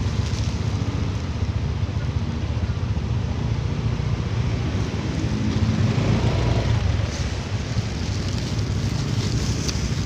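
Small motor scooter engine running at low speed as it creeps forward in a queue, swelling briefly about midway.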